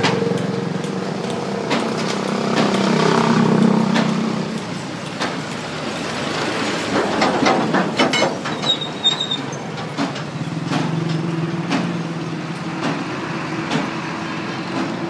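A motor vehicle engine running steadily in the background, with scattered sharp clicks and knocks.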